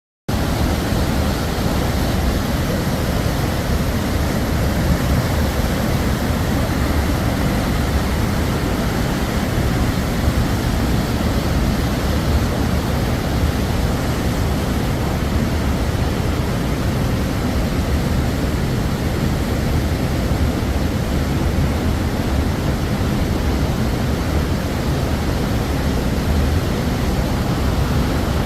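Waterfall roaring: a steady, loud rush of falling water, heavy in the low end.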